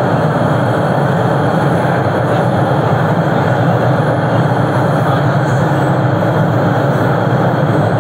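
New 2022 MBTA Orange Line subway train (CRRC-built car) running through a tunnel, heard from inside the front car: a steady, loud running noise with no let-up.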